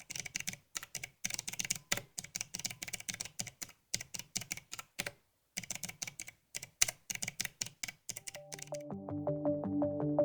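Fast typing on a mechanical keyboard: dense runs of sharp key clicks in bursts broken by short pauses. About eight seconds in the typing stops and synthesizer music comes in.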